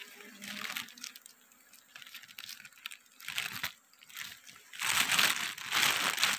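Clear plastic bag crinkling and rustling as pieces of honeycomb are handled in it, in several spells, the longest and loudest in the last second and a half.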